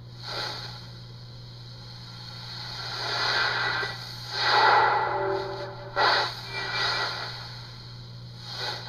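A steady low hum runs under several soft, breathy swishes that swell and fade. The loudest swish comes about four and a half seconds in, and two short ones come near six and near nine seconds.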